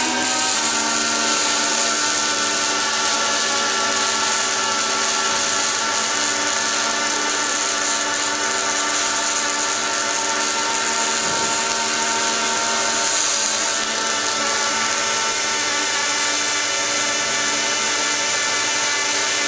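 Robotic MIG/MAG arc welding: the welding arc burns continuously, a steady hiss with a constant humming tone under it.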